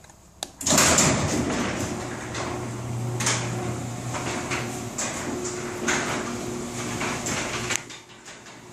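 Garage door moving along its tracks: a continuous rattle with many clicks over a steady hum. It starts abruptly about half a second in and stops near the end.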